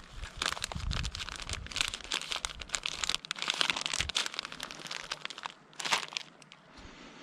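Footsteps crunching and crackling through dry leaves and undergrowth, a dense, irregular crackle that eases off near the end.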